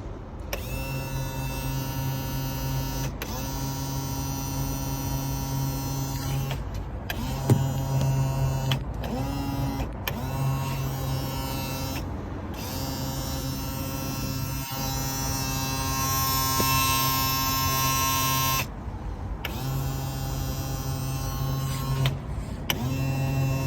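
Boat power trim and tilt motor humming steadily, stopping and restarting several times as the button is pressed and released. It makes an unusual sound and does not trim properly, which the owner suspects is a motor fault. For a few seconds past the middle a higher hissing sound joins the hum.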